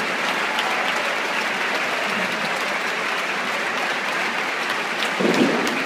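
Large audience applauding steadily, a dense even clatter of many hands, with a brief louder swell about five seconds in.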